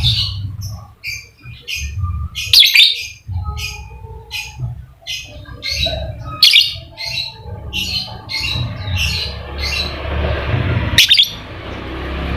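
Lovebird calling in a rapid run of short, shrill squawking chirps, about two to three a second, the chattering 'ngekek' song. A low rumble runs underneath, a hiss builds toward the end, and there is a sharp click about eleven seconds in.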